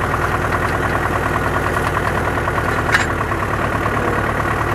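Farm tractor's diesel engine running steadily while towing a working manure spreader, with one sharp click about three seconds in.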